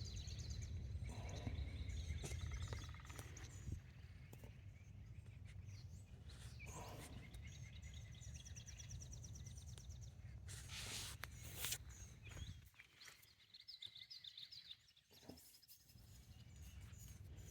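Geese honking faintly, a few scattered calls, over a low rumble of wind that drops away about thirteen seconds in. Two brief rustling noises about eleven seconds in are the loudest sounds.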